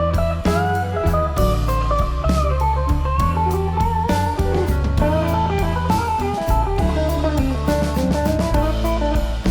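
Background music: an electric guitar melody over bass and a drum kit with a steady beat.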